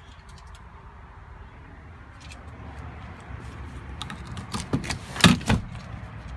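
Ford Edge rear seatback being folded down: the release under the seat cushion is pulled with a few latch clicks, then the seatback lands with a heavy thud about five seconds in, followed by a smaller knock.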